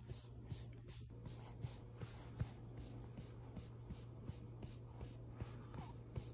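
Soft, rhythmic patting of a hand on a baby's back, about two to three light pats a second, over a steady low hum.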